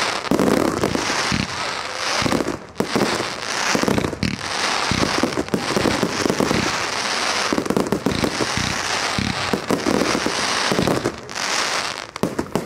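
Dense fireworks barrage: many shells bursting in quick, overlapping bangs over continuous crackling from gold crackle effects, thinning briefly near the end.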